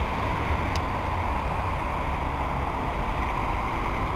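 Steady rumble and hiss of city street traffic, with buses and cars passing on the avenue below.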